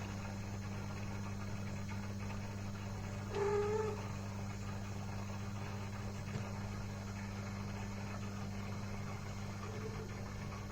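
A domestic cat meows once, briefly, about three seconds in, with a fainter call near the end, over a steady low electrical hum.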